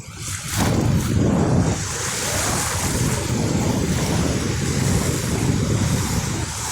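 Ocean surf breaking and washing up the beach, with wind buffeting the microphone. The wash swells much louder about half a second in.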